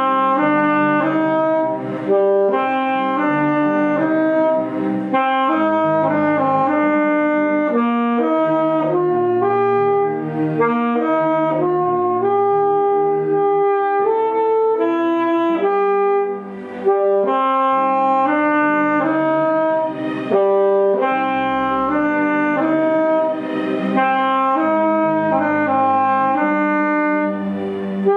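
P. Mauriat PMXA-67R alto saxophone with a Selmer S80 C* mouthpiece, playing a slow, legato ballad melody of held and moving notes. A lower accompaniment plays underneath it.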